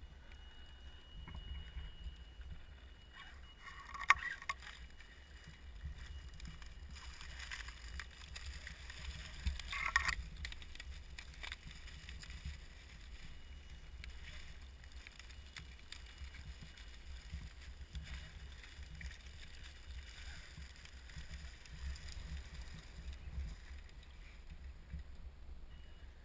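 A scale RC crawler, an Axial SCX10 Jeep Wrangler JK, driving over dry leaf litter and into shallow water, with crunching and splashing. There are sharp knocks about four seconds in and again around ten seconds.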